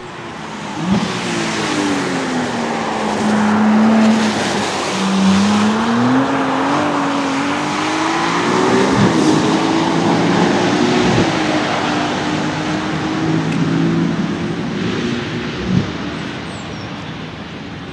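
Ferrari F80's twin-turbo V6 running with the revs sweeping: the pitch sinks over the first few seconds, climbs again, then holds roughly steady over a loud rushing noise. Two sharp cracks come, one about a second in and one near the end.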